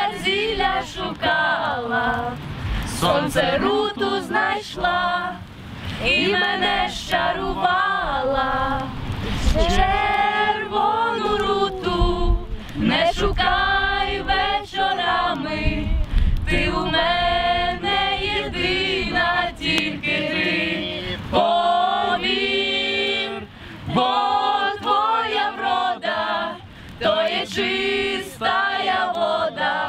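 A group of people singing together, with women's voices prominent, in phrases broken by short pauses.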